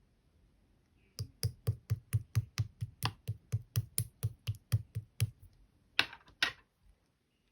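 Clear slime being worked by hand, giving a quick, even series of sharp popping clicks, about four a second, then two longer crackling squelches near the end.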